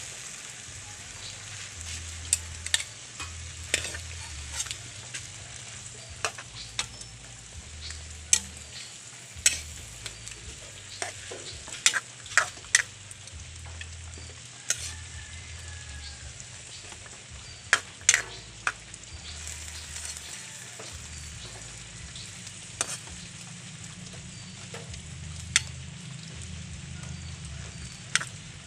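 Ground pork, cabbage and carrot sizzling in a metal wok, with a steady hiss. A spatula stirs the mixture and now and then strikes or scrapes the wok with sharp clacks, at irregular intervals.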